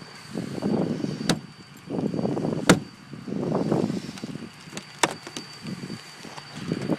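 Frozen-shut pickup truck door being tugged at repeatedly without opening: three rough bouts of straining noise and several sharp clicks and snaps from the handle and latch, the loudest about midway.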